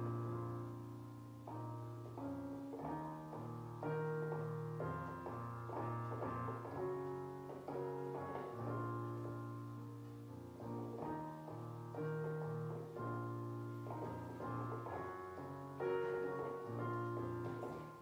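Instrumental music led by piano, slow chords changing every second or two over held low bass notes.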